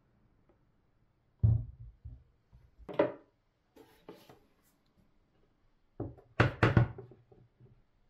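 Kitchen items set down by hand: a dull thud about one and a half seconds in, a sharper knock around three seconds, and a quick cluster of wooden knocks near the end as a wooden cutting board is laid on a glass cooktop.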